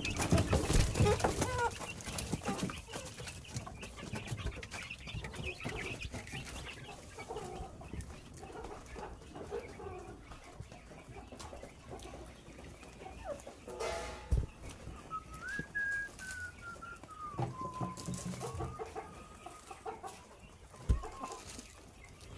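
A flock of chickens clucking and calling, with scattered short clicks and knocks. One longer call, about two-thirds of the way through, slides down in pitch.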